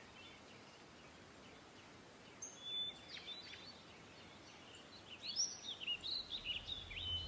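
Faint birdsong: scattered chirps and short whistled calls, in a bout about two and a half seconds in and again from about five seconds in, over a low steady hiss.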